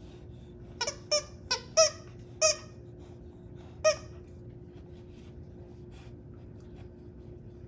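A squeaker dog toy squeaked six times as a husky bites down on it: five quick squeaks, then one more about a second and a half later.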